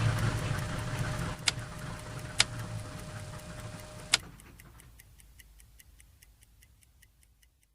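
Cabin interior of a Douglas DC-3 with the engine drone dying away. Three sharp clicks come about a second and a half, two and a half, and four seconds in; a steady hum cuts off at the last one. Faint rapid ticking follows, about four a second, as the sound fades out.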